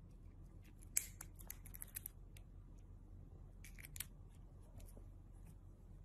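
Runs of short, sharp clicks as a cat bites at a thin metal tool held in a person's fingers: the loudest click comes about a second in, with more in quick succession after it and another cluster near four seconds in.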